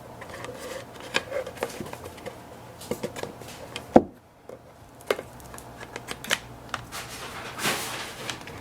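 Plastic parts of a pet water fountain handled during assembly: scattered light clicks and knocks, with one sharper knock about four seconds in and a brief rustle near the end.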